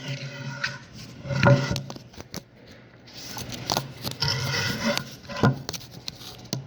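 Irregular clicks, scrapes and rustles of small objects being handled at close range.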